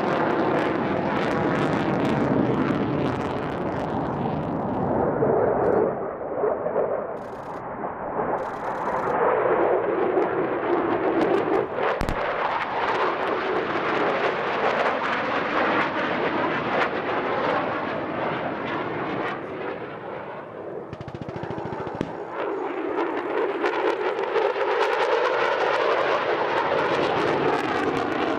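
Fighter jet engines, an F-22A Raptor among them, roaring through low passes, the noise sweeping up and down as the jets go by, with a single sharp crack about twelve seconds in.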